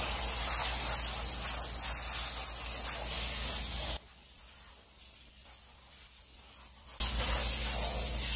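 Detailing steamer's wand jetting steam with a steady loud hiss over a low hum. It cuts off about four seconds in and comes back abruptly three seconds later.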